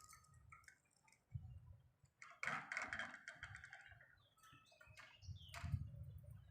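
Budgerigars giving a rapid, buzzy burst of chattering squawks about halfway through, among scattered sharp clicks.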